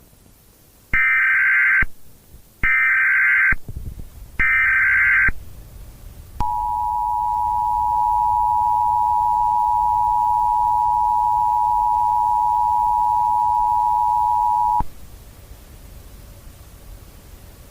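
Emergency Alert System broadcast tones: three short bursts of the warbling digital header data, each about a second long, then the two-tone attention signal, a steady dual-pitched tone held for about eight seconds before cutting off abruptly into faint hiss.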